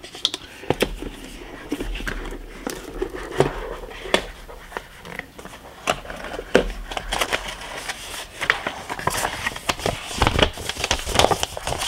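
A white cardboard model-kit box being handled: the lid comes off and paper instruction sheets rustle as they are lifted out, with scattered taps and knocks of the cardboard throughout.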